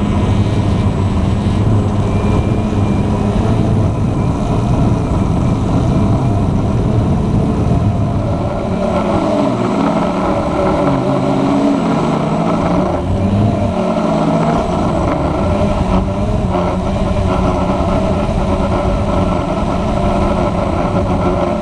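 Walkera QR X350 Pro quadcopter's electric motors and propellers running steadily. From about a third of the way in, the pitch wavers up and down as the motor speeds change.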